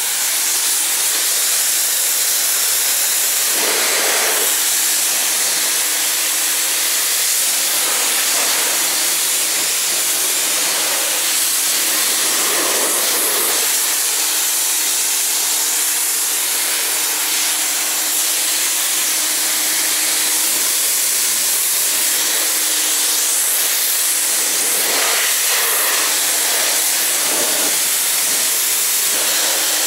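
A motor-driven jet hissing loudly and steadily, with a constant motor hum under it. It starts abruptly and swells briefly several times.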